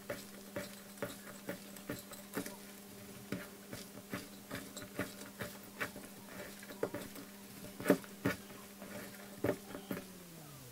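Hands mixing shredded cabbage, onion and carrot with mayonnaise in a stainless steel bowl, giving repeated short wet squishes, the loudest about eight seconds in. A steady low hum runs beneath and drops in pitch near the end.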